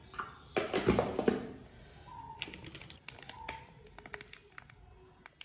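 Kitchen utensils being handled: a short rustle, then a quick run of light clicks and taps of a spoon against containers.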